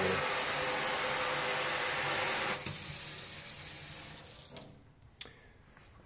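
Water from a pull-down kitchen faucet sprayer running into a stainless steel sink. It drops in level about two and a half seconds in and dies away a couple of seconds later as the tap is shut, followed by a single sharp click.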